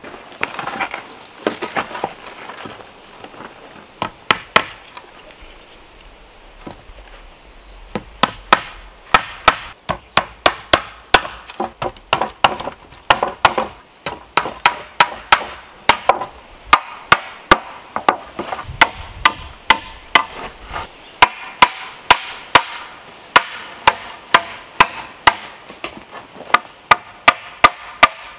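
Hand tools striking wood and stony ground in sharp blows. They are sparse at first, then come at roughly two a second from about eight seconds in.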